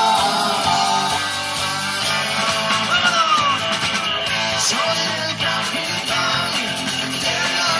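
A live rock band plays an instrumental passage on electric guitars, electric bass and drum kit. A lead guitar line slides down in pitch about three seconds in.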